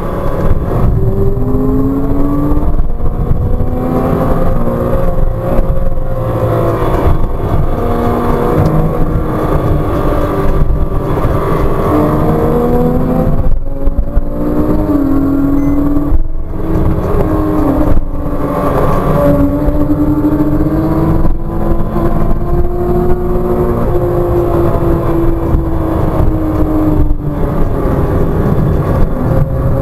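Porsche Cayman 987.2's 2.9-litre flat-six engine heard from inside the cabin, working hard through second and third gear. Its note keeps rising and falling in pitch as the car accelerates out of and slows for corners, with a few very short breaks in the sound.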